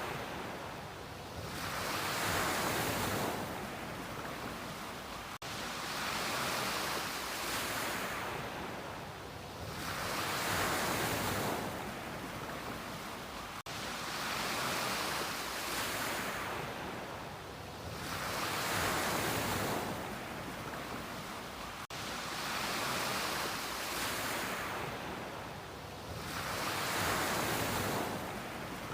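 Ocean waves breaking and washing up the shore, the surf hiss swelling and fading in a regular rhythm of about one wave every eight seconds.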